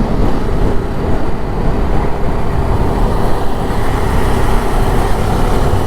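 Motorcycle riding at road speed: steady engine and wind noise, heavy in the low end, with no changes in pace.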